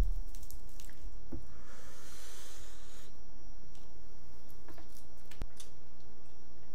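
Fingers squishing and picking at rice and salmon in a bowl, with a low thump at the start and a few soft, scattered wet clicks.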